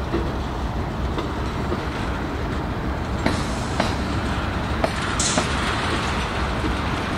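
Freight train's tank cars and open-top freight cars rolling past: a steady rumble of wheels on rail, broken by several sharp clacks from the wheels in the second half.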